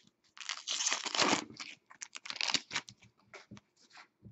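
Foil trading-card pack torn open, a crinkling rip lasting over a second, followed by a string of quick clicks and rustles as the cards are handled.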